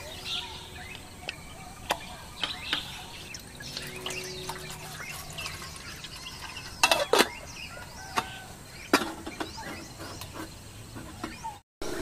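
Camping cookware being handled: a gas canister fitted to a portable camping stove and an aluminium kettle filled from a plastic water bottle, giving sharp clicks and knocks, loudest in a quick cluster about seven seconds in. Birds chirp behind it.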